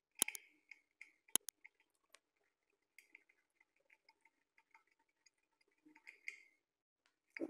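Small metallic clicks of a screwdriver tip against a toilet fixing screw held in the hand: a few sharp clicks in the first second and a half, then scattered light ticking, and a soft knock near the end.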